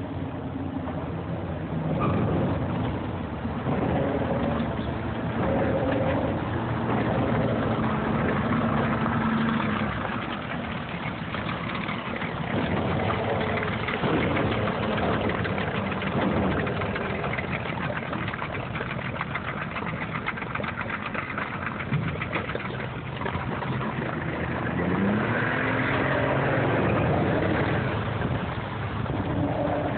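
Pontoon boat's outboard motor running at low speed, its pitch shifting up and down as the throttle is worked during docking, with rising pitch sweeps near the end.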